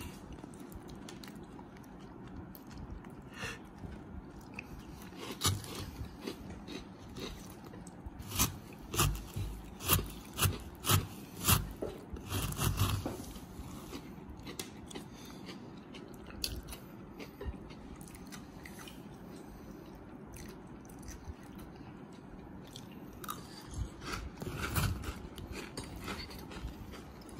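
Crunchy chocolate rice crisps being bitten and chewed, with a run of loud crunches in quick succession in the middle and another short cluster near the end. Between them, lighter clicks and rustles come from a metal spoon stirring the crisps in a plastic jar.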